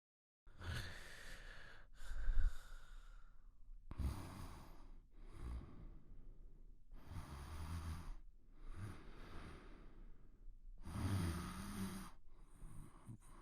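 A person snoring: about four slow breaths, each a low rasping snore paired with a breathy, airy rush, roughly three and a half seconds apart. It begins after a brief gap of total silence.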